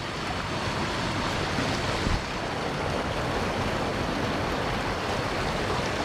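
Steady rush of a stream's water flowing over rocks, with a brief low knock about two seconds in.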